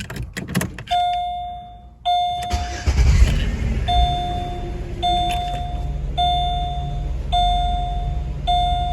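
A few clicks at the ignition and two dashboard warning chimes, then the 2007 Chevy Malibu Maxx's 3.5 L V6 cranks and starts about two and a half seconds in. It settles into a steady idle while the chime keeps ringing about once a second.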